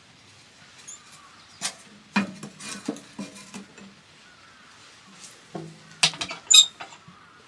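Clinks and knocks of utensils against dishes and cookware, some briefly ringing, in two clusters: about two seconds in and again about six seconds in, the loudest near the end.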